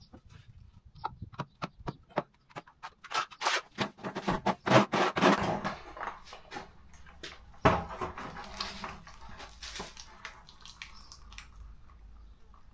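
Plastic mixing bucket knocked and clattered as it is picked up and tipped, then wet self-levelling compound pouring out of it onto the floor with a soft, even splashing near the end.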